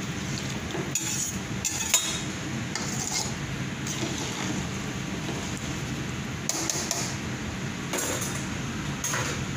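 A metal spoon clinking and scraping against a large stainless steel pot as the kabsa broth is stirred. There are a few short knocks in two clusters, one in the first few seconds and another near the end, over a steady kitchen background noise.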